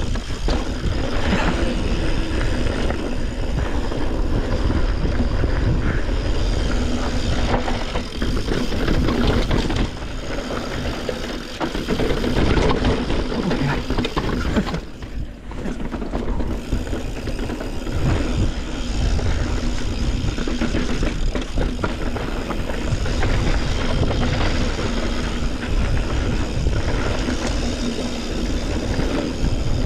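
Yeti SB140 mountain bike riding fast downhill over a dirt and rock trail: steady rolling and rattling from tyres, frame and drivetrain, with wind on the microphone. The noise drops briefly about halfway through.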